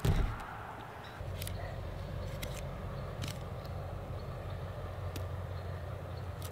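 A heavy thump, then a steady low rumble with a few faint sharp clicks as a kitchen knife cuts through a plucked chicken's leg joint to take off the foot.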